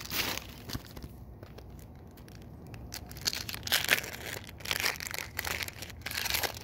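Foil trading-card booster pack wrapper being crinkled and torn open, in a run of short crackly bursts in the second half.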